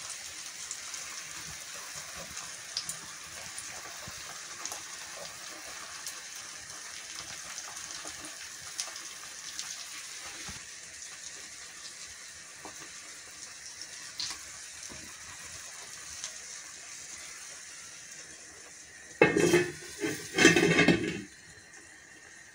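Beaten eggs frying gently in a nonstick pan: a steady soft sizzle with light crackles. Near the end a stainless-steel pan lid clatters against the pan several times as it is set on, and after that the sizzle goes quieter.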